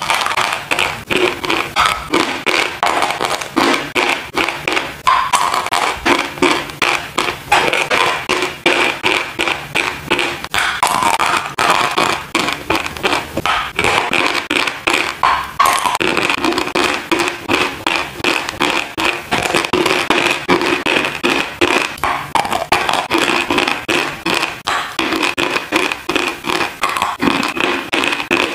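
Dry chalk being bitten and chewed close to the microphone: a fast, unbroken run of crisp crunches, several a second.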